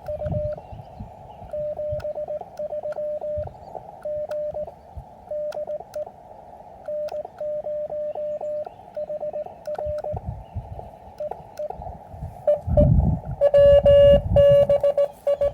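Morse code (CW) from an Elecraft KX3 transceiver: a single tone of about 600 Hz keyed on and off in dots and dashes over band hiss held to a narrow filter, with scattered clicks. Near the end the tone gets louder and harsher, with low thumps under it.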